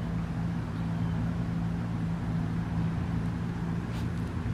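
A steady low mechanical hum, even in pitch and level throughout.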